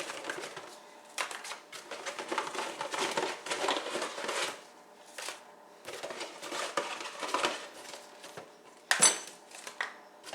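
Handling noises from making coffee in a kitchen: irregular rustling and small knocks, with a sharp ringing clink near the end.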